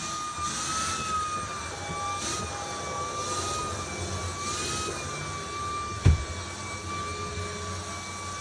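Vacuum cleaner running steadily with a high motor whine while it is drawn over a dog's coat, its rushing airflow swelling briefly several times. A short thump sounds about six seconds in.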